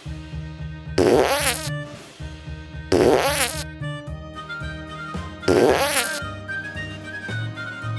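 Bouncy children's background music with a steady bass line, cut three times by loud, wobbling fart-like blasts of well under a second each, about one, three and five and a half seconds in.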